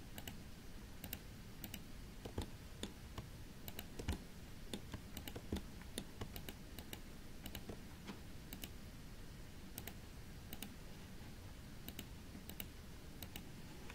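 Faint, irregular clicking of a computer mouse and keyboard, a click or two a second, with a few louder clicks in the first half.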